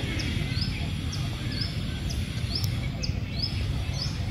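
A bird calling over and over, a short high note that rises and then levels off, about twice a second, over a steady low rumble.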